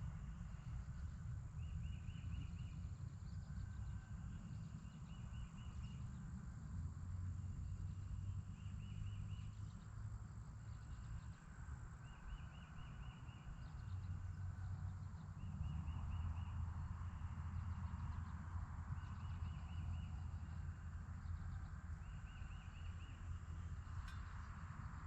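Quiet outdoor ambience: a short chirping trill repeats every two to three seconds over a steady thin high whine and a low wind rumble, with one faint click near the end.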